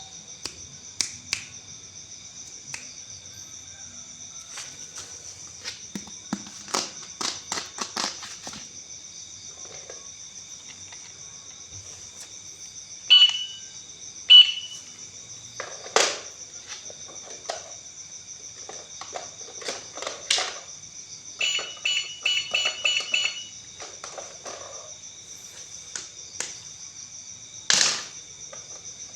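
Plastic toys and packaging being handled, with scattered clicks and taps. An electronic toy gives two short beeps, then a quick run of beeps later on, over a faint steady high whine.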